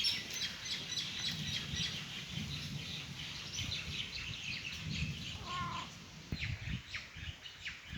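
Small birds chirping and twittering busily in quick, high notes, over a low rumbling background noise; one brief wavering call about five and a half seconds in.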